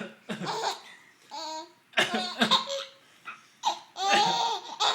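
A man coughing in several sharp bursts while a young boy laughs heartily between them, breaking into a longer high-pitched laugh about four seconds in.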